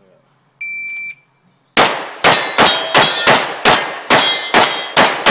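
A shot timer's electronic start beep sounds for about half a second, then, a moment later, a fast string of about ten pistol shots, roughly three a second, begins, with the steel plate and popper targets clanging as they are hit.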